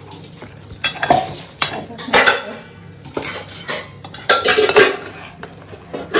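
Metal spoon scraping and knocking against a cooking pot as marinated prawns are stirred into fried masala, in a few irregular clattering strokes.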